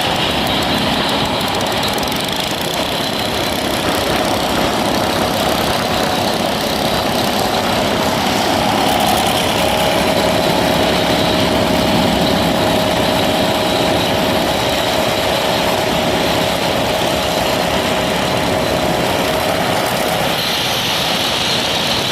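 A machine engine on a concrete road job running steadily with a constant hum; a higher hiss joins in near the end.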